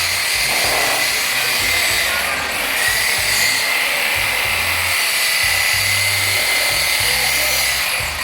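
A power tool running steadily on metal, a high whine over a grinding hiss, with background music and its stepping bass line underneath.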